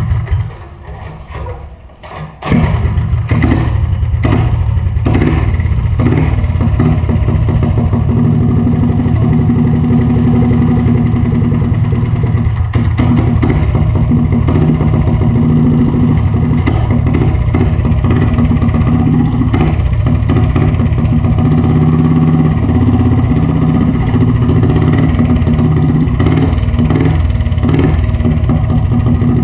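Motovox 206cc single-cylinder flathead mini bike engine, running on methanol, being started: a loud burst at the very start, then it catches about two and a half seconds in and runs steadily.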